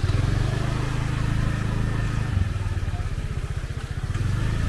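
A motor vehicle engine running close by, a steady low hum.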